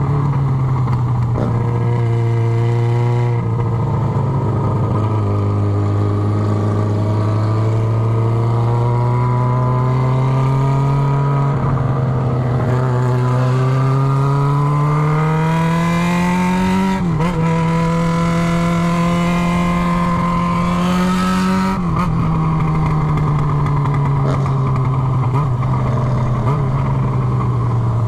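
Yamaha XJ6 inline-four engine running on the bare exhaust pipe with its end tip removed, while riding. The note drops twice quickly early on, then climbs slowly as the bike pulls for a long stretch. It dips sharply once and drops again later, then falls gradually as the bike eases off near the end.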